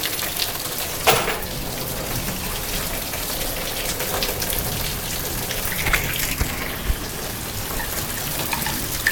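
Rain falling steadily and hard, with a sharp knock about a second in and a few smaller knocks around six to seven seconds in.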